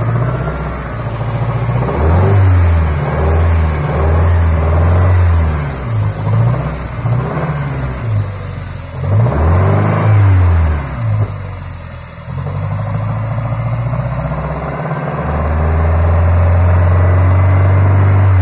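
Toyota Sera's 5E-FHE 1.5-litre four-cylinder engine revved in a series of short blips, then held at a raised, steady speed near the end. It is being run to show an engine knock.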